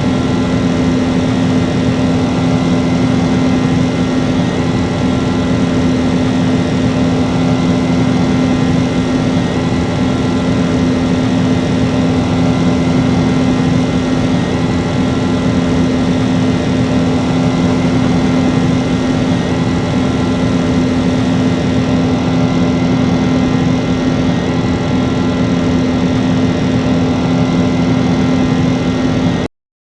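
Airliner jet engines running at a steady, unchanging drone with a strong constant hum; the sound cuts out abruptly at the very end.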